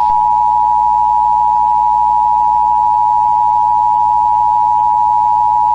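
Emergency Alert System attention signal: the two-tone alert of 853 Hz and 960 Hz sounded together as one loud, steady dual-pitched tone.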